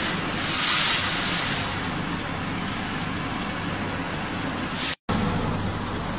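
Small animal-feed pellet line machinery running with a steady mechanical din, a strong hiss over it for the first two seconds. The sound cuts out for a moment near five seconds, and after that a steady low hum is clearer.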